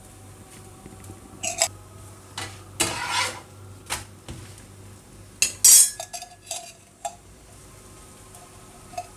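A metal slotted spatula scrapes and taps against a nonstick frying pan as a paratha is pressed, making a run of clinks and short scrapes. A longer scrape comes about three seconds in, and the loudest comes about five and a half seconds in.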